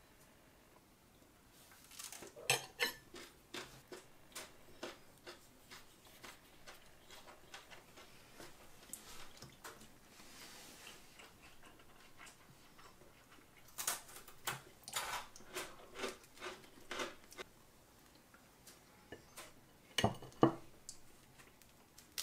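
Metal fondue fork clinking and scraping against a black ceramic fondue pot as a bread cube is dipped and swirled in melted cheese: scattered groups of small clicks, with two sharper knocks near the end.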